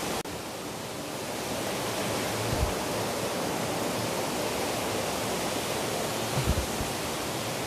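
Steady rush of flowing water, an even hiss with two soft low bumps partway through.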